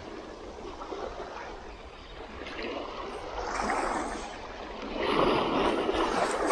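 Small sea waves washing against a rocky shoreline, swelling twice, the second surge about five seconds in the loudest.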